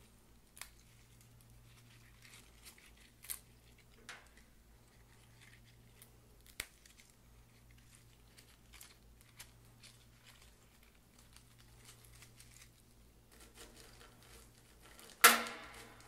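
Scattered faint rustles and small snaps of fresh mint sprigs being handled, then near the end a loud crunch of crushed ice as the mint bouquet is pushed into the ice heaped in a silver julep cup.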